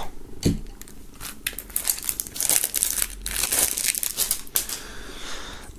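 Plastic shrink-wrap crinkling and tearing as it is peeled off a CD digipak: a rapid run of small crackles, busiest about halfway through.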